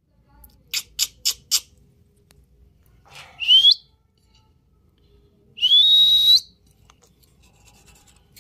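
A pet ring-necked parrot gives four quick harsh calls. Then come two whistles, each gliding upward in pitch and held briefly at the top, the second one longer.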